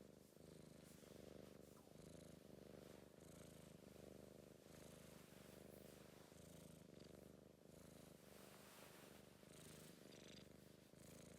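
British Blue shorthair cat purring softly and continuously, the purr dipping briefly with each breath about once a second.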